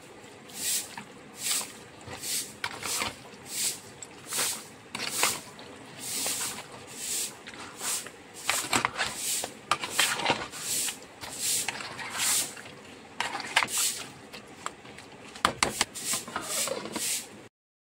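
A steel spoon mixing chunks of raw mutton with yogurt and ginger-garlic paste in a plastic bowl: repeated wet squelching strokes, about one every three-quarters of a second at first, then quicker and more irregular, with a few sharp clicks of the spoon against the bowl. The sound stops abruptly near the end.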